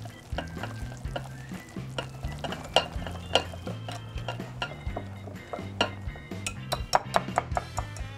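Wire whisk beating a thick flour, milk and egg batter in a glass bowl, its wires clicking against the glass in a quick, irregular run that grows denser near the end. Background music plays underneath.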